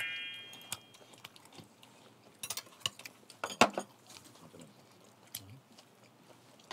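A bright, rising chime opens the sound and rings out within about a second. Then a person eats with metal chopsticks: quiet chewing and sharp clicks of chopsticks against bowls, the loudest a little over three seconds in.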